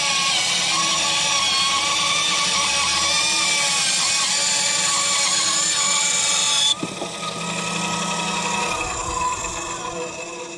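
Kraft&Dele benchtop electric planer running and cutting a board: a loud, steady motor whine with cutter noise. About two-thirds of the way through it drops off sharply, and the motor winds down with a falling whine.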